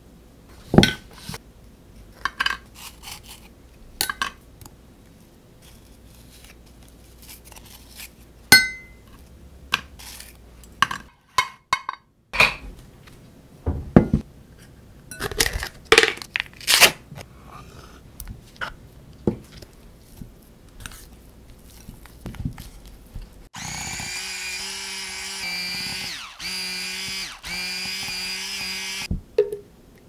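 Kitchen clatter of dishes and containers knocked and set down on a counter, then an electric mixer whirring for about five seconds, stopped briefly twice, beating cream cheese.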